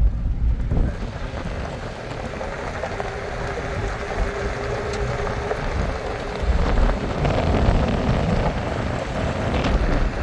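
Mercedes Sprinter van driving on a rough unpaved road: a steady low rumble with tyre and road noise.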